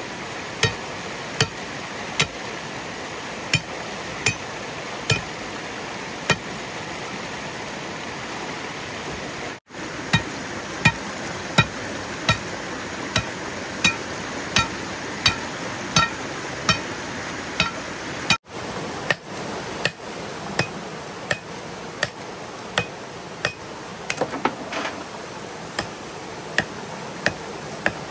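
Repeated sharp hand-tool strikes, a little more than one a second, each with a brief ringing, over a steady rushing noise.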